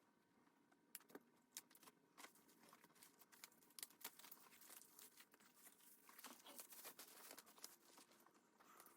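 Near silence with faint scattered rustles and light clicks from a pebble grain leather drawstring handbag being handled.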